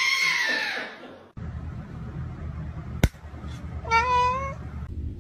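A cat's long drawn-out scream fading away about a second in; then a sharp click, and about a second later one short wavering meow.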